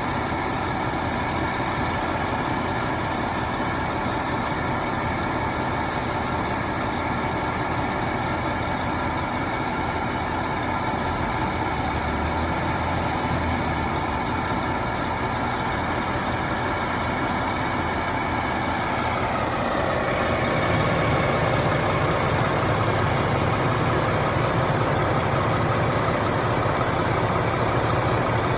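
Engine idling steadily. About two-thirds through, its tone drops a little while a deeper hum comes in and it grows somewhat louder.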